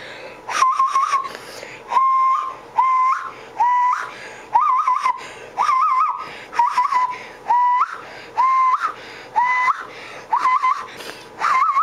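Hand whistle: air blown over the knuckles into tightly cupped hands, giving about a dozen short hooting notes, each scooping up into a steady pitch, some with a quick warble, about one a second.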